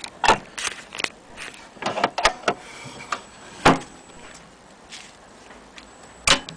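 Clicks and knocks from handling a portable Columbia gramophone's case: its lid and metal hook catches being worked. There is a loud knock a little after halfway and another near the end.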